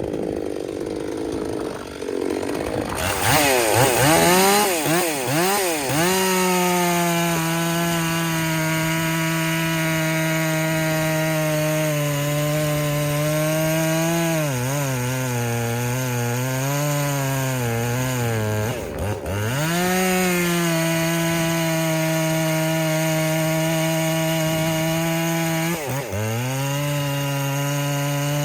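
Husqvarna 257 two-stroke chainsaw, its ignition timing advanced about 10 degrees, revved up and down from a low run a few seconds in, then held at full throttle cutting through wood, its pitch sagging under load and recovering several times.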